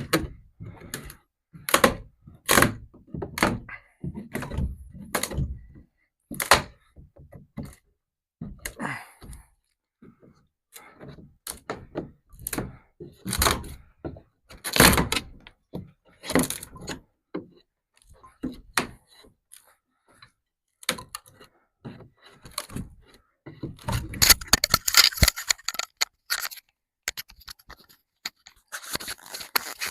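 Repeated knocks and thuds of the top of a shipping crate being pulled and pried apart, with stretches of scraping about three-quarters of the way through and again near the end.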